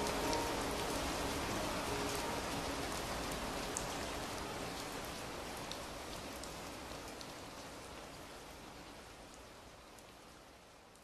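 Steady rain falling and pattering, with scattered sharp drop clicks, fading out slowly to very faint. The last held piano notes die away in the first second.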